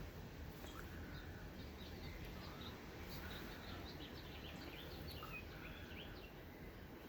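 Songbirds chirping: many short, high chirps and quick little sweeps, scattered irregularly over a faint steady low rumble.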